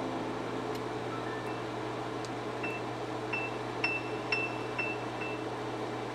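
Tongs clinking lightly against the rim and side of a cooking pot while tofu blocks are turned in simmering broth: about six small taps, each with a short ring, a few seconds in. A steady low hum and hiss run underneath.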